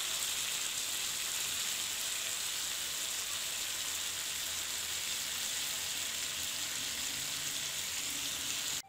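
Marinated chicken pieces frying in oil in a pan: a steady sizzle that cuts off abruptly near the end.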